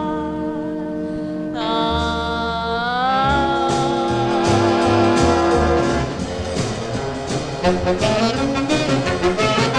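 Instrumental dance-band music led by brass: held chords with an upward slide about a second and a half in, then a faster, choppier passage from about six seconds in.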